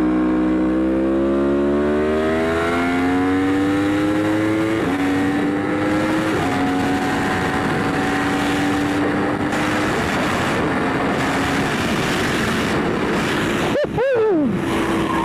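2018 Yamaha R1's crossplane inline-four, ECU-flashed and with its catalytic converter deleted, under hard acceleration through the gears. The pitch climbs steadily for about five seconds, drops at an upshift, climbs again briefly and drops at a second upshift about six and a half seconds in, then holds fairly steady at speed under heavy wind noise.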